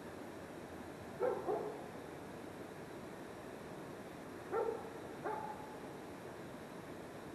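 Two short animal calls, each a quick pair of pitched yelps, one about a second in and the other about four and a half seconds in, over a steady background hiss.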